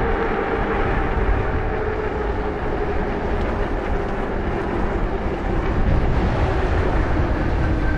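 Wind rushing over the microphone of a moving e-bike, a dense low rumble, with a low whine that drops slowly in pitch.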